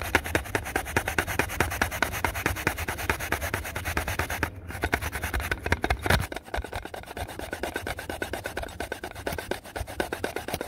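Daikon radish grated by hand on a toothed daikon grater: rapid rasping back-and-forth strokes, several a second, with a brief pause about four and a half seconds in.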